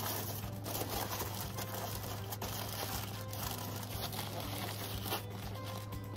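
Aluminium foil crinkling and crackling as it is folded and crumpled by hand around a fish. A steady low hum runs underneath.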